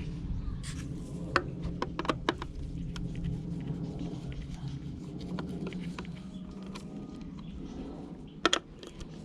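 A hand tool scraping and prying at the casing of a Bush Bluetooth speaker, with scattered sharp clicks and knocks and a louder double click near the end.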